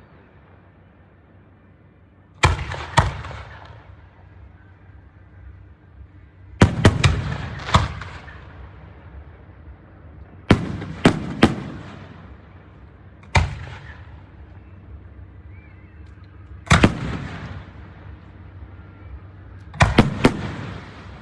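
Aerial fireworks shells bursting: sharp bangs coming singly or in quick clusters of two to four, every few seconds, each trailing off in a rumbling echo.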